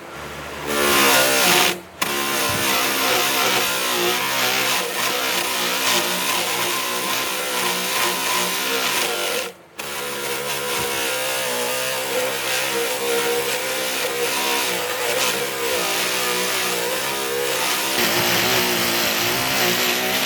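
A power tool's motor spinning up about a second in and running with a wavering pitch, breaking off briefly twice.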